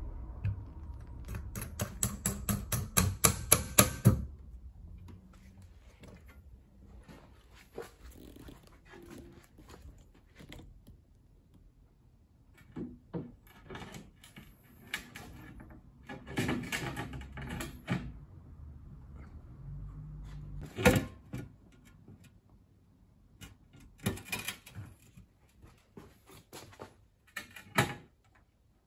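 A hand-pump vacuum suction lifter on a pane of wired glass clicking quickly for about three seconds as it is pumped. Then scattered knocks and clunks as the glass is handled and set into a steel door frame, with one sharp knock about twenty seconds in.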